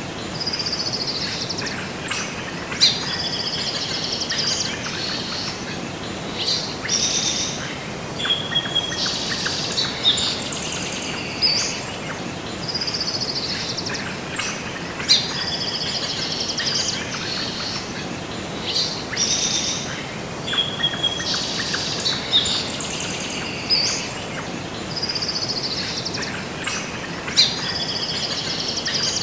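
Several songbirds chirping and singing in short whistled phrases over a steady background hiss, in a nature-ambience track whose calls recur about every twelve seconds.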